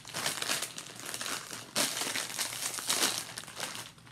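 Bag of Miss Vickie's jalapeño kettle chips crinkling as it is handled and tipped toward the mouth, with a brief pause about halfway.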